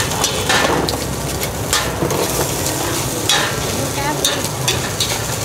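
Bột chiên (rice-flour cake) frying in oil in a pan: steady sizzling, with a metal spatula scraping and stirring a few times.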